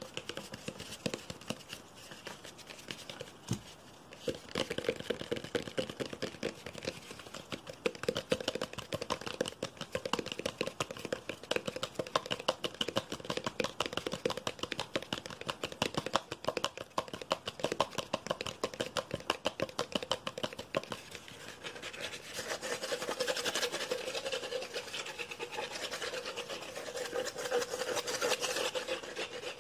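Fingernails and fingertips tapping and scratching rapidly on a handheld object: a dense, unbroken run of quick taps and scratching strokes, which gets brighter and busier in the last several seconds.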